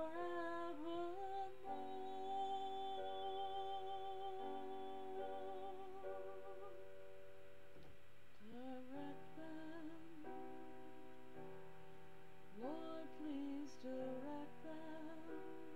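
Music: a woman singing a slow song, her held notes wavering with vibrato and sliding between pitches, over long sustained chords.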